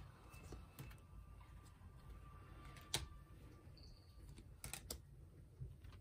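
Glossy photocards being shuffled by hand, giving a few faint clicks and flicks as card edges slide and snap against each other. The sharpest click comes about three seconds in, and a quick pair follows near the end.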